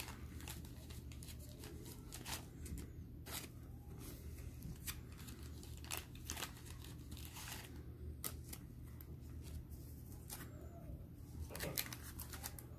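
Glossy Bowman Chrome trading cards being slid off a stack one at a time, giving short, faint card-on-card clicks and slides at an uneven pace of about one a second.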